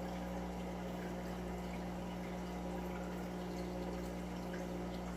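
Water trickling and bubbling in an aquarium rack's air-driven filters over a steady low hum.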